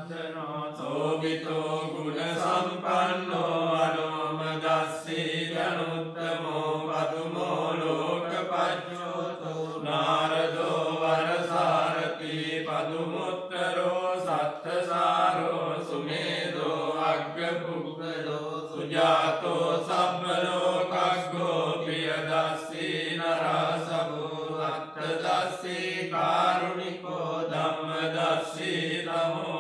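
Buddhist monks chanting Pali pirith verses together: an unbroken, steady chant of male voices.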